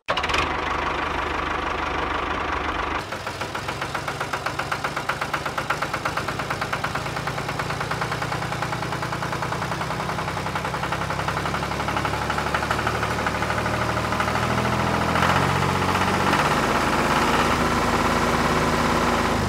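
Tractor engine running with a steady chugging beat, getting louder over the last few seconds.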